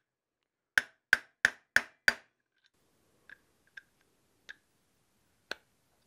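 Hammer tapping the pinion bearing assembly deeper into an aluminium Porsche 911 steering rack housing, so its rubber O-ring seats and seals without dragging on the pinion. Five sharp, ringing strikes come about a third of a second apart, then four lighter, sparser taps.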